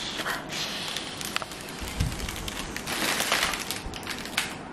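Foil letter balloon crinkling and crackling in the hands while it is blown up by mouth through a drinking straw, with puffs of breath through the straw.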